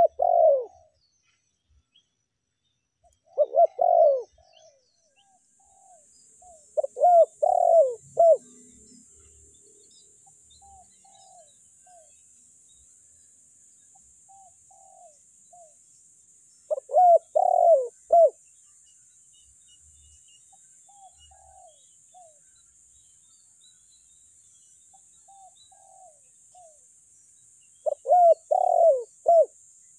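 Spotted dove cooing: loud phrases of several quick coos, repeated at uneven gaps of about 3 to 11 seconds, with fainter coos in between. A faint steady high hiss sets in about five seconds in.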